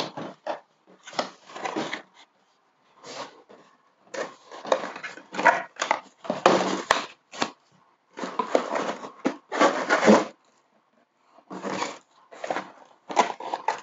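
Cardboard box being opened and unpacked by hand: flaps, an inner carton and a foam sheet scraping and rustling in irregular bursts, with a couple of sharp clicks around the middle.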